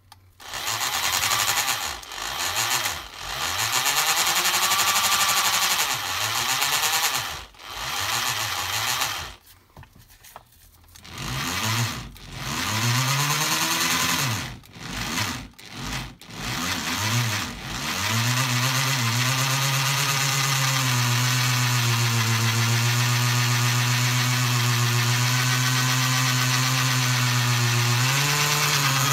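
Hand-held electric drill with a diamond-tipped bit boring into Pamukkale marble, the motor speeding up and slowing down in a series of short bursts with brief stops, then running at a steady speed for the last third.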